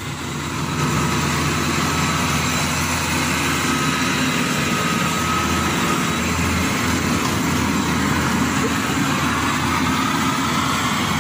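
Rice combine harvester's diesel engine running steadily, with a faint high whine that comes and goes above the drone.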